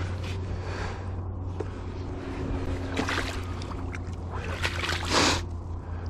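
Shallow river water sloshing and splashing around a landed coho salmon in the shallows, with the loudest splash about five seconds in, over a steady low rumble.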